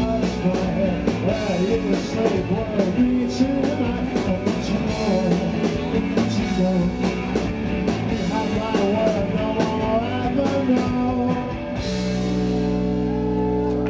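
Live rock band, with electric guitar, electric bass and drum kit, playing loudly with a steady drum beat. About twelve seconds in the drums stop and the band holds one sustained ringing chord to close the song.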